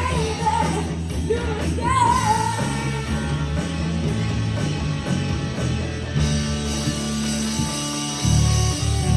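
Live rock band playing: a sung line that ends about two seconds in, then guitar and bass carry on without vocals.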